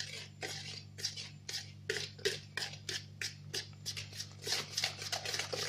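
Wire whisk beating thick cake batter of eggs, sugar, oil and freshly added flour in a plastic bowl: a run of quick scraping taps, about four a second, quickening near the end. A faint steady low hum runs underneath.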